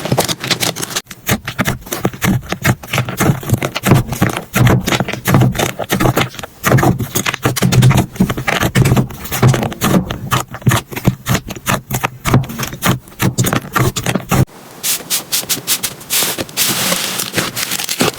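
Slime being squished and poked by hand, a dense run of sticky clicks, pops and crackles. About three-quarters of the way through it switches abruptly to a lighter, sharper crackle.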